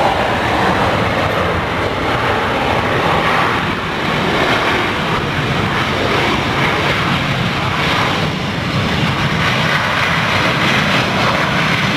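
Jet engines of a Boeing 737 airliner as it rolls fast along a wet runway: a loud, steady rush of engine noise mixed with the hiss of tyre spray.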